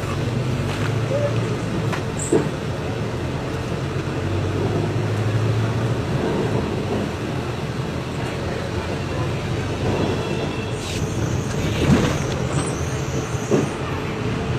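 Volkswagen 17.230 OD bus running on the move: a steady low engine and road rumble with rattling and a few sharp knocks, and a thin high squeal from about eleven seconds in.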